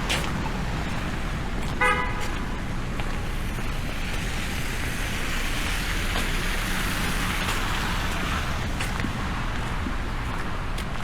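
A short car horn toot about two seconds in, over steady street traffic noise that swells in the middle.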